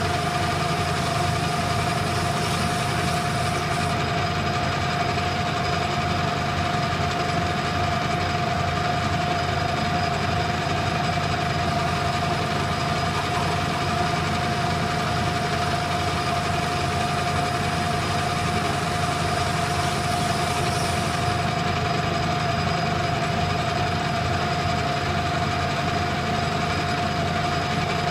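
Metal lathe running with a steady, unchanging whine while a carbide-insert tool turns a taper on a brass bar.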